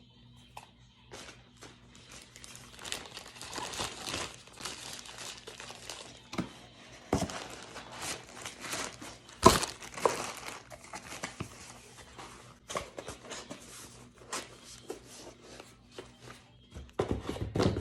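Packaging being handled during unboxing: irregular crinkling and rustling with some tearing, broken by a few short knocks, one sharp knock about halfway through the loudest.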